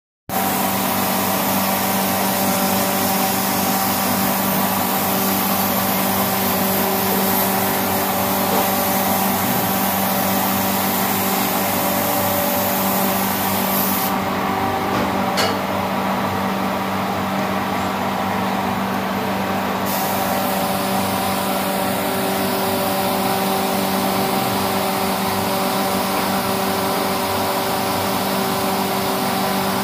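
Compressed-air spray gun hissing steadily as it sprays the hydrochrome coating, over a constant motor hum. The spray stops for about six seconds partway through, with a single click, then starts again.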